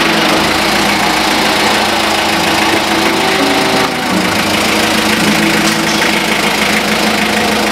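Hyundai H100 light truck's diesel engine running steadily with a knocking clatter as the truck manoeuvres at low speed.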